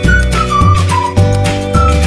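Background music: a high, pure-sounding melody over held bass notes and a steady beat.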